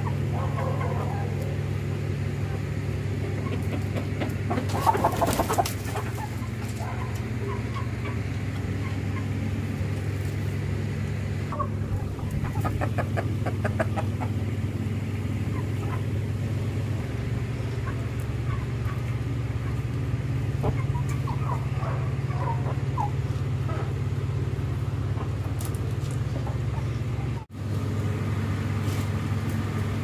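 Aseel chickens clucking now and then over a steady low hum, with a louder burst about five seconds in.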